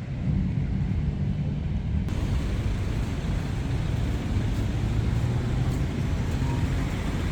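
Steady low rumble of a moving vehicle, road and engine noise.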